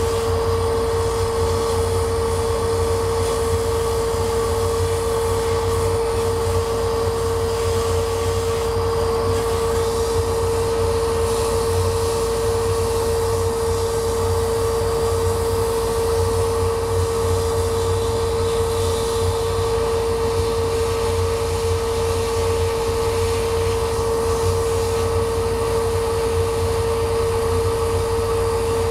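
Laser cutter running as it engraves a wooden sheet: a steady machine drone with a constant mid-pitched hum over a low hum and a blower-like hiss.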